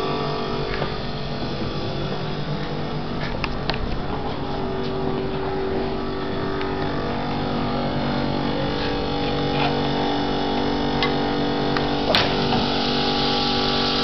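Small motor running with a steady hum made of several held tones, with a few faint clicks.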